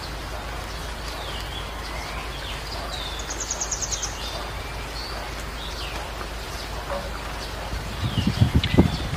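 Small birds chirping in trees over a steady outdoor hiss, with a fast trill about three seconds in. Near the end a few low thumps come in as the camera is carried along.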